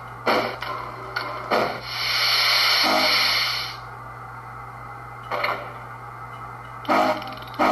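Soundtraxx heavy steam locomotive sound decoder playing through a model locomotive's small speaker: a few steam exhaust chuffs, then a long steady hiss of steam for about two seconds, a quieter spell, and chuffs starting up again near the end at about two a second. A constant electrical hum runs underneath.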